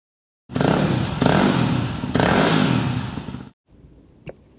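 Motorcycle engine revving hard at high load, with two brief dips about a second apart, then cutting off abruptly. A single faint click follows in the quiet near the end.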